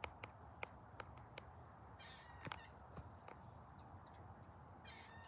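Near silence, broken by scattered faint clicks and two brief high-pitched chirps, one about two seconds in and one near the end.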